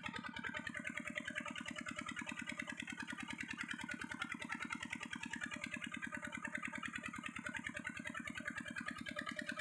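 Single-cylinder diesel stationary engine running steadily, driving a belt-driven irrigation water pump, with a fast, even chugging beat.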